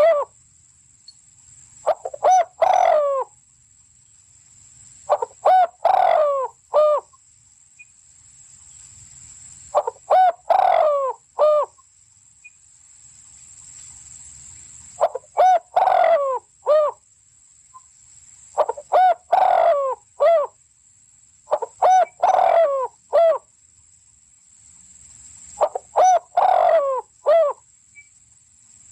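A bird calling in bursts of several quick notes, repeated about every three to five seconds, seven times.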